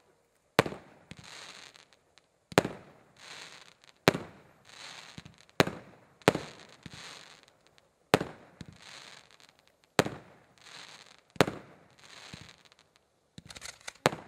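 Aerial fireworks at a display: about nine sharp bangs, one every one and a half to two seconds, each followed by a short hiss. A quick run of pops comes near the end.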